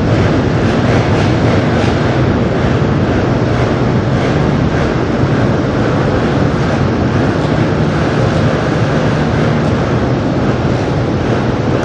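Many motocross bike engines running together at a starting gate: a loud, steady drone inside a large hall.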